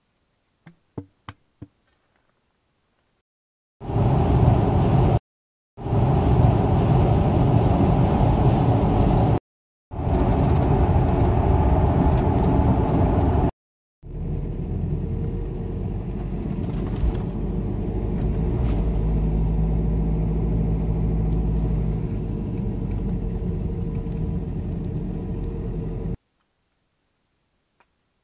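A few light clicks as the wire grill rack is handled at the stove's firebox. Then a loud, steady rushing noise of meat grilling over the wood fire in the open Frontier stove, in several stretches that cut off abruptly.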